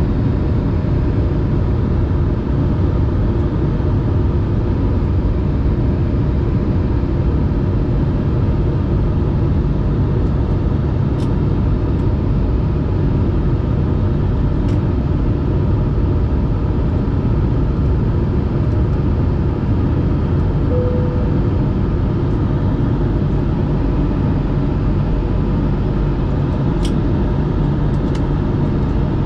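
Steady cabin drone of a jet airliner in flight, heard from a window seat beside the wing: the underwing turbofan engine and rushing airflow making a deep, even noise shortly after takeoff.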